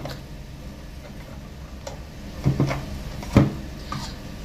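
Plastic-and-metal air fryer basket handled and lifted out of its drawer pan: a few sharp knocks, the loudest about three and a half seconds in, over a low steady hum.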